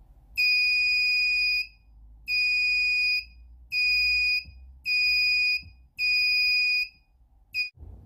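Piezo buzzer of a homemade 9 V door alarm sounding five high-pitched steady beeps of about a second each, then a short blip near the end: the alarm triggered by the door being pulled open.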